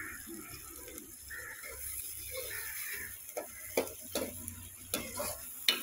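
Metal spoon scraping and clinking against a steel pan while stirring frying onions, with several sharp knocks in the second half.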